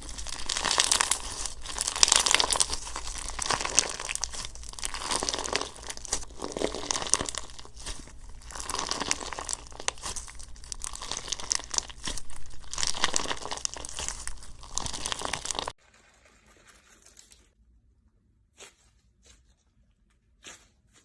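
Slime being worked by hand, a dense crackle of many small pops and crinkles that stops suddenly about three-quarters of the way through, followed by a few faint clicks.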